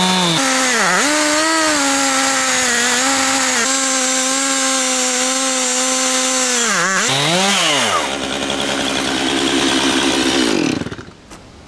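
Chainsaw on an Alaska mill ripping a red oak log lengthwise into a 1-inch plank, its engine running hard and steady under load, with brief dips in engine speed twice. Near the end the engine's pitch falls and it quietens as the cut is done.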